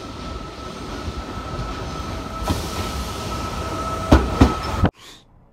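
Electric commuter train running into a station: a steady rumble with a thin high whine, and sharp wheel clacks over rail joints once about two and a half seconds in and twice more near the end. The sound cuts off suddenly shortly before the end.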